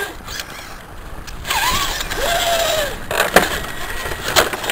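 Electric motor and gears of a scale RC crawler truck whining, the pitch rising and falling with the throttle as it drives through mud. A few sharp knocks come near the end.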